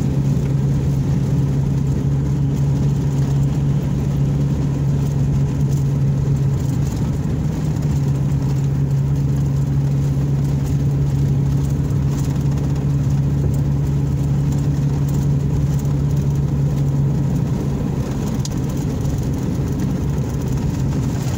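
A car driving along, heard from inside the cabin: its engine and tyres run steadily with a constant low hum.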